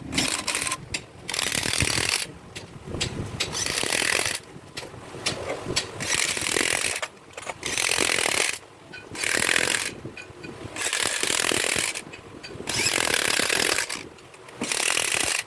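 A power tool run in short repeated bursts, each about a second long with brief pauses between, during work on a truck engine.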